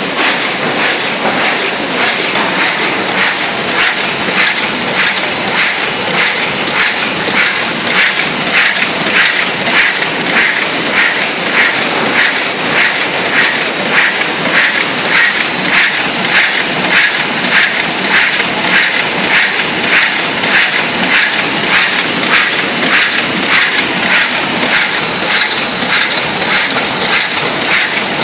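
Brauss automatic flatbed die-cutting machine running in production, its press and sheet transport clattering in a steady, rapid, even rhythm.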